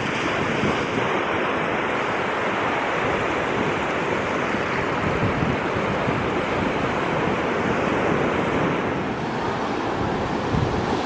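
Gulf of Mexico surf washing onto the beach, a steady rush of waves with wind buffeting the microphone.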